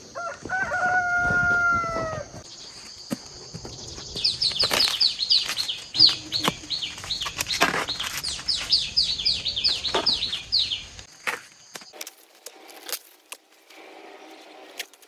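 A rooster crows once, one long call dropping slightly in pitch at the end. After that a small bird gives a quick run of short, high, falling chirps, about three a second, over a steady high whine.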